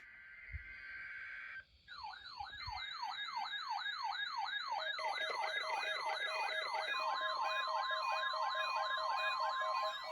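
Several NOAA weather-alert radios sound their alarms together for a weekly test. A siren sweeps up and down a few times a second under a faster, higher warble, more receivers join with beeping tones about halfway through, and a steady tone starts near the end. Before the alarms, for the first second and a half, comes the buzzy data burst of the alert's SAME header.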